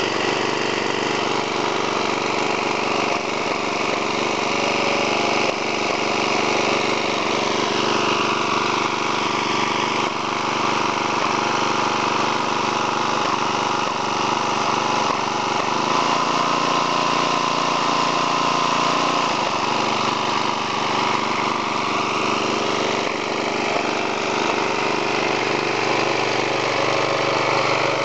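A 3.75 hp Briggs and Stratton vertical-shaft engine on an MTD rototiller running steadily. Its note shifts for about three seconds a little past halfway, then settles back.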